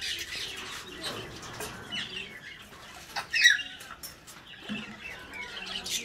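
African grey parrots chirping, whistling and chattering in short, scattered calls, with one loud sharp squawk about three and a half seconds in.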